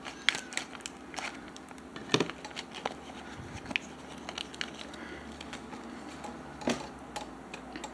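A small plastic packaging bag being snipped open with scissors and handled: scattered light clicks and crinkles, the sharpest about two seconds in, as a tiny wooden miniature is taken out.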